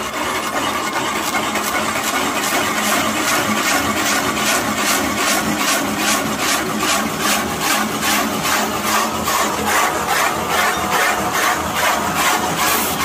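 Wood lathe on automatic feed, its cutter boring out the inside of a log: a steady scraping, cutting noise that pulses about twice a second.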